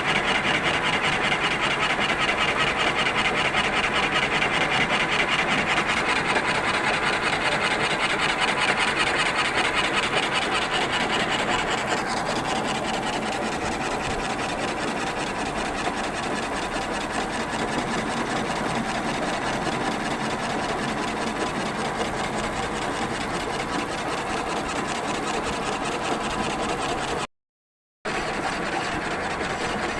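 Lathe turning a workpiece, with the cutting tool scraping against it in a steady, fine-grained machining noise. The noise eases a little about twelve seconds in and cuts out for under a second near the end.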